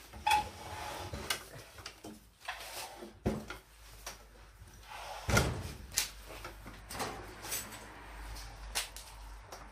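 Clicks, clunks and scraping of a Holzprofi SRO305 radial miter saw being handled by hand, its head and locking parts moved and set, with a heavy knock about five seconds in. The saw's motor is not running.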